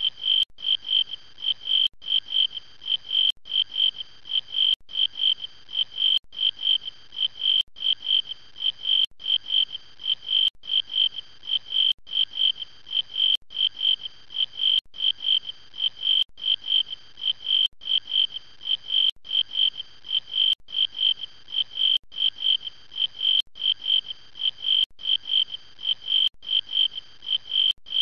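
A high chirping call on one steady pitch, repeated several times a second, with a short break about every second and a half.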